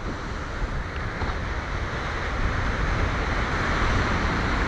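Wind rushing over the microphone in a steady, gusty haze that slowly grows louder.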